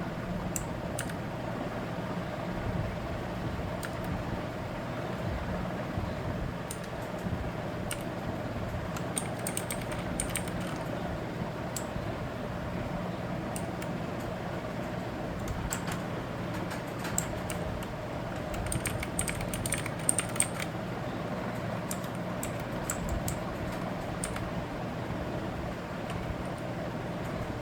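Keys being pressed on a Redragon K551 mechanical keyboard: scattered single clicks a second or more apart, with a quick run of louder clicks about two-thirds of the way through, over a steady low hum.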